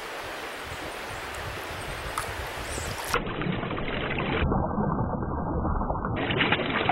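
Stream water flowing steadily around the wading angler, growing louder from about halfway through.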